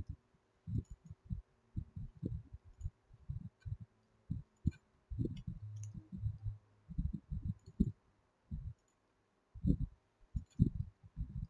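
Computer keyboard and mouse being worked: irregular low thuds with faint sharp clicks over them, coming in quick clusters with short gaps.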